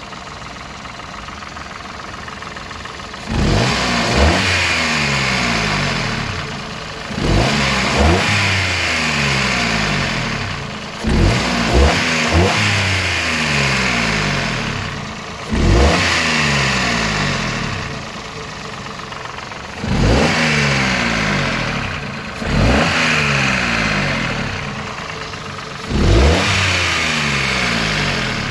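Toyota Aygo car engine idling and being revved in short throttle blips about every four seconds, falling back to idle each time. The owner hears a ticking in it that he suspects may be a bearing, the timing chain or the valves.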